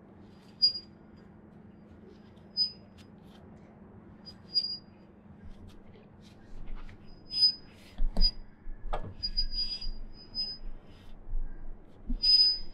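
Hand ratcheting pipe threader working on 3/4-inch black iron pipe, its ratchet clicking with each stroke of the handle. There is a sharp click about every two seconds at first, then quicker, busier clicking from about seven seconds in. The die has not yet bitten into the pipe.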